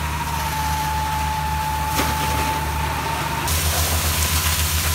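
Fire truck engine running, with a steady high whine and a loud hiss of spraying water; a single click about two seconds in.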